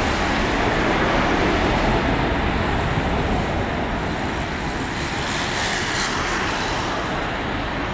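Boeing 737's jet engines at takeoff thrust during the takeoff roll: a steady, broad jet noise that grows slowly fainter as the airliner accelerates away down the runway.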